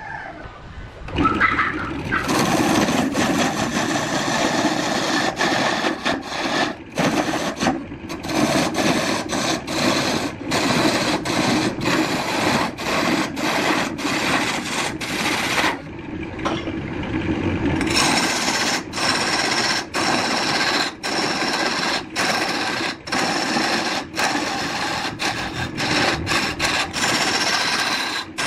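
A turning tool cutting into an areca palm root blank spinning on a wood lathe: a loud scraping, rasping noise with many brief breaks as the cut comes and goes. It starts about a second in and goes duller and quieter for a couple of seconds about halfway through before the cut resumes.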